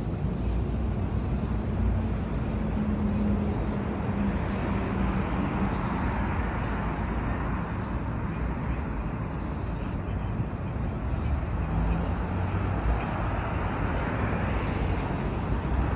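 Steady city road traffic: cars and buses passing on the road beside the pavement, a constant rush of tyres and engines, with a low engine hum in the first few seconds.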